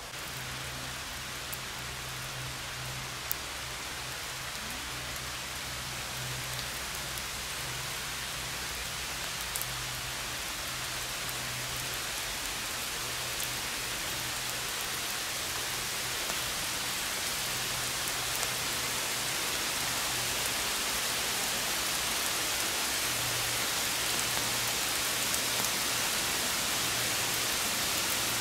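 Steady rain falling, an even hiss that grows gradually louder.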